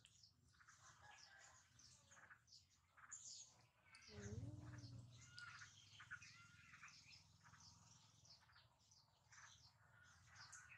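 Faint chirping of small birds, many short calls throughout, with a brief low hum about four seconds in.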